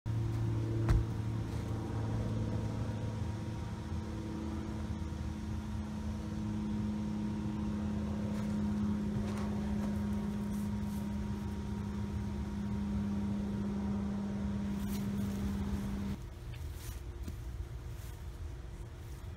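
A steady, low motor hum, the sound of an engine running, with a sharp click about a second in. The hum cuts off abruptly about 16 seconds in, leaving a fainter background hum.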